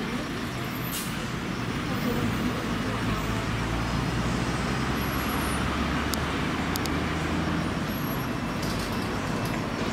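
Night-time city road traffic: vehicles passing with a steady hum of tyres and engines. A heavier engine rumble swells about two and a half seconds in and eases off near the end.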